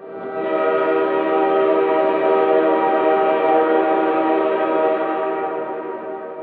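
Train horn sounding one long, steady blast that fades away near the end.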